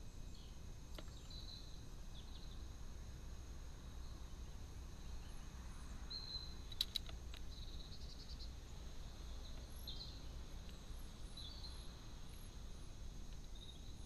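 Faint, short bird chirps scattered over a steady background hiss, with a couple of sharp clicks about seven seconds in.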